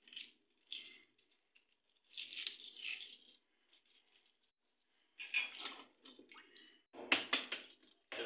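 Hard-boiled egg shells being cracked by tapping and peeled off by hand: irregular crackling and rustling, with a quick run of sharp taps about seven seconds in. Tapping the shell all over lets it come away cleanly with its inner membrane.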